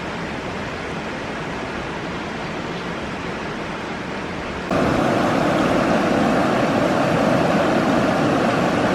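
Steady rush of flowing river water, becoming suddenly louder about halfway through.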